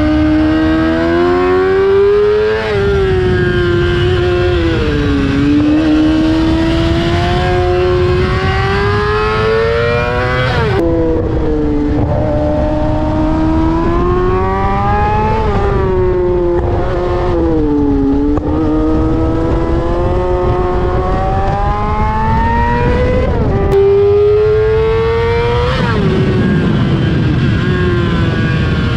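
Yamaha R6's inline-four engine through an Akrapovic exhaust, revving high while riding, its pitch climbing steadily through the gears and dropping sharply at upshifts. Several times the revs sag and then climb again as the throttle is eased and reopened.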